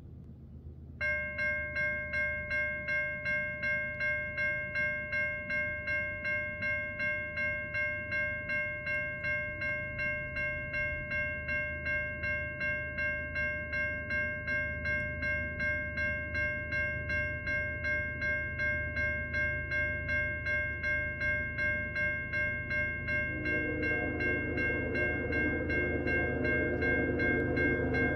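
Railroad grade-crossing warning bell starts about a second in and rings evenly, about two strokes a second. Near the end, an approaching locomotive's multi-chime air horn joins with sustained lower notes, and the sound grows louder.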